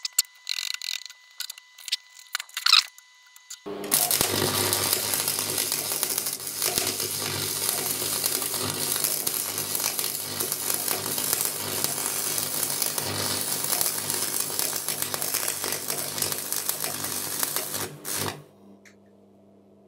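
AC transformer buzzbox stick welder striking an arc with a 6013 electrode on rusty steel. A few scratchy strikes in the first three seconds fail to hold, because the rust makes the arc hard to start. Then a steady, dense arc crackle runs over the welder's low mains hum for about fourteen seconds and stops suddenly near the end.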